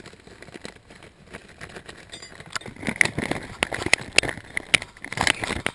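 Clicks, knocks and rattles of a truck's jack tool kit and tire plug kit pieces being handled and rummaged through, sparse at first and much busier from about halfway in.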